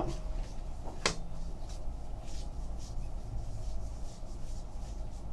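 Trading cards being handled and slid against one another, in soft, irregular rustles, with one sharp click about a second in.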